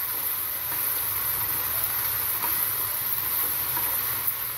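Chopped cabbage, capsicum, onion and paneer sizzling steadily in a frying pan over a high flame as a wooden spatula stirs them.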